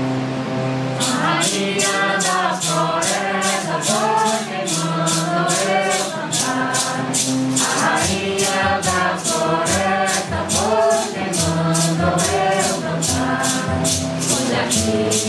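A group of voices singing a Santo Daime hymn, with maracas shaken on a steady beat; the singing and maracas come in about a second in over held instrument chords.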